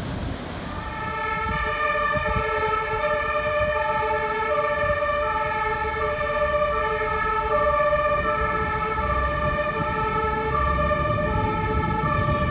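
Two-tone emergency-vehicle siren of the German kind, its pitch switching back and forth between two notes, less than a second on each. It comes in about a second in and then sounds steadily.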